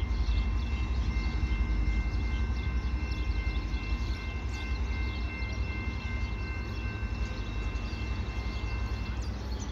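EXO commuter train of Bombardier multilevel coaches rumbling as it rolls into the station. A steady high ringing tone sounds over the rumble and stops near the end.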